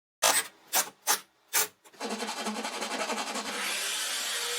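Four short, sharp noises, then from about two seconds in a small USB desk fan runs with a steady rasping, rubbing noise.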